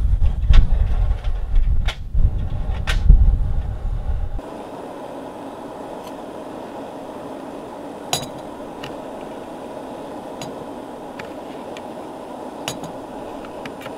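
Wind buffeting the microphone with a gusty low rumble for the first four seconds, then it stops abruptly. After that comes a steady hiss, with a few light clinks and scrapes of a metal spoon scooping ground coffee from a metal tin.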